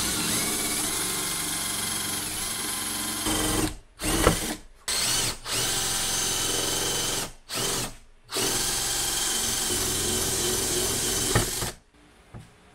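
Cordless drill boring a hole through a car's bonnet panel. It runs steadily for about four seconds, then in several short stop-start bursts, then one longer run that stops about a second before the end.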